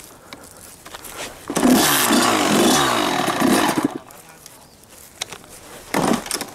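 Small two-stroke dirt bike engine revving hard. A burst with the pitch sweeping up and down lasts about two seconds, starting about a second and a half in, and a short blip of the throttle follows near the end.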